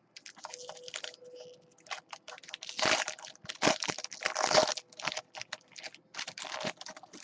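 Crinkling and tearing of the plastic wrapping on a baseball-card box and pack as they are opened: a run of quick crackles with louder bursts about three and four seconds in.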